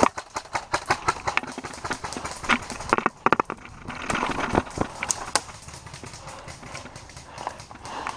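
Airsoft guns firing: sharp pops in quick strings for the first couple of seconds, then scattered single shots and clicks.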